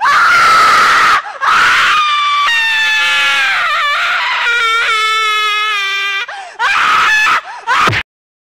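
Cartoon characters screaming in panic: young female voices give long, high-pitched screams with a few brief breaks. The screaming cuts off suddenly about eight seconds in.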